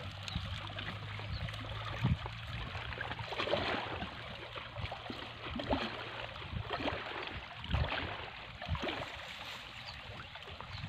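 Soft rustles and small ticks from hands baiting a fishing hook with a prawn among dry leaves, over a steady outdoor hiss, with a faint low hum in the first half.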